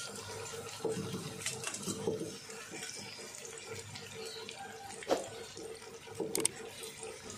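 Whole purple eggplants deep-frying in a pan of hot oil, the oil sizzling and bubbling steadily. A few sharp clicks stand out about five and six seconds in.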